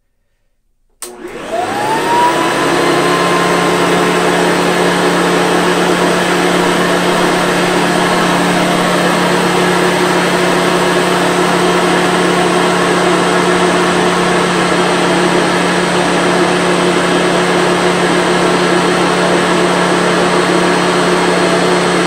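Hoover Commercial C1125 upright vacuum switched on about a second in: the motor spins up with a rising whine, then runs steadily.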